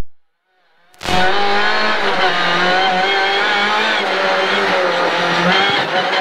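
Rally car engine running hard at high, fairly steady revs, heard from inside the cockpit. The sound drops out to dead silence for about the first second, then comes back in at full volume.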